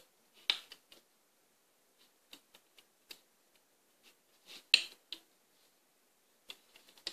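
Sparse light clicks and snaps of rubber loom bands being stretched and slipped onto the pegs of a plastic loom board, the loudest about three-quarters of the way through.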